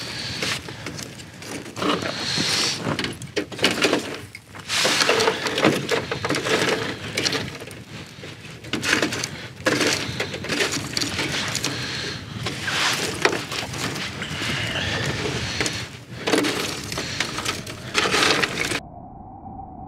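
Metal kebab skewers clinking, clattering and scraping on a charcoal grill as they are turned and handled, in irregular bursts. About a second before the end it cuts off to a quieter steady tone.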